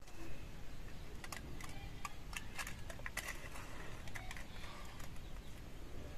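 Aluminium foil crinkling and clicking as wooden ice-cream sticks are pushed through the foil lids of small cups, with scattered light ticks as the sticks are picked up and handled.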